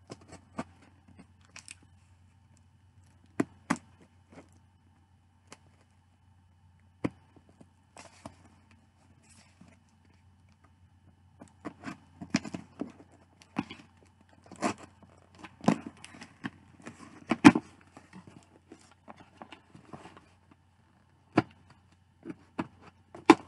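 Cardboard shipping box being opened: packing tape slit and torn, with scattered sharp clicks, scrapes and rustles of the cardboard. The handling gets busier and louder about halfway through.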